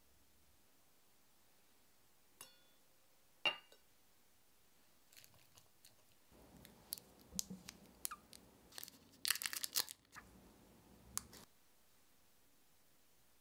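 Two sharp clinks with a short ring from the glass candy jar, then plastic-wrapped caramel candies rustling and crinkling as a hand digs among them and unwraps one, with a loud burst of wrapper crinkling about nine seconds in.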